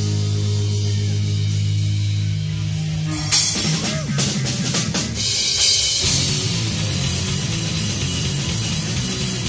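A live rock trio of electric guitar, bass guitar and drum kit. A held low chord rings out until about three seconds in, when a drum fill breaks in, and the full band then plays a driving rhythm.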